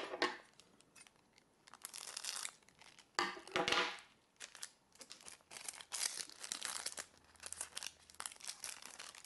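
Clear plastic wrapper of a trading card being torn open and crinkled as the card is worked out of it, in several irregular rustling bursts, the loudest a little over three seconds in.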